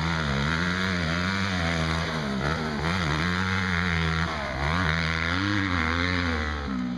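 Yamaha YZ250F's single-cylinder four-stroke motocross engine. The pitch rises and falls over and over as the throttle is worked, with short drops between pulls.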